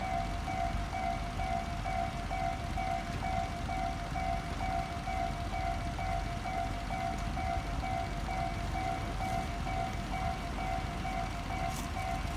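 Japanese railway level-crossing alarm ringing, an electronic two-tone bell pulsing about twice a second: the barriers are down and a train is approaching. A steady low rumble runs underneath, and a few sharp ticks come near the end.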